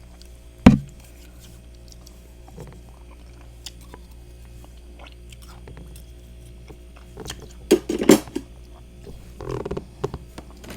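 Mouthful of freezer frost being bitten and chewed close to the microphone. A single sharp crunch comes just under a second in; after a quiet stretch come clusters of crunchy bites and chewing about seven seconds in and again near the end.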